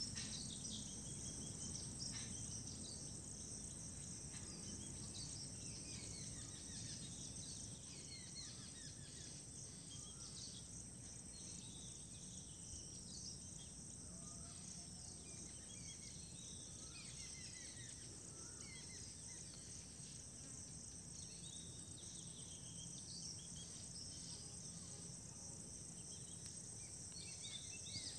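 Faint ambient background: a steady high-pitched insect-like trill, with many short scattered chirps like distant birds.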